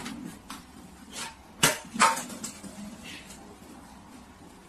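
A handful of short, sharp knocks and taps from a plastic water bottle being set down and handled on a hard tabletop. The two loudest come about a second and a half and two seconds in.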